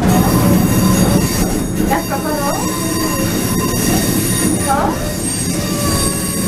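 Train running through a curve, its wheels squealing against the rails in thin, high steady tones over the rushing rumble of the running gear, heard from inside the cab.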